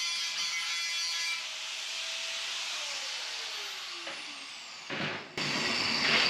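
Handheld power tool working on bare steel, its motor running steadily and then winding down with a falling whine. About five seconds in, a louder noise starts, broken by an abrupt cut.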